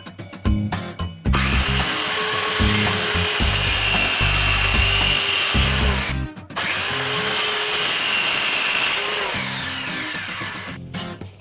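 A power tool working on material in two runs of about five and four seconds, with a short break between them and the second run fading away. Background music with a steady beat plays underneath.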